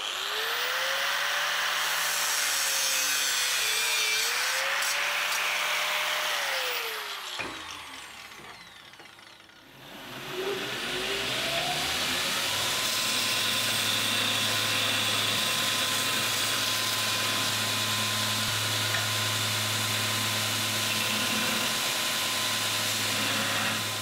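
An angle grinder spins up and grinds a small steel bar clamped in a vise, its whine dipping under load, then winds down about seven seconds in. About ten seconds in a bench belt sander starts, its motor rising to a steady whine over a low hum, and grinds the end of the bar against the belt until it stops near the end.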